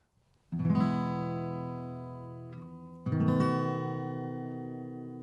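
Background music: two strummed acoustic guitar chords, the first about half a second in and the second about three seconds in, each left to ring out and fade.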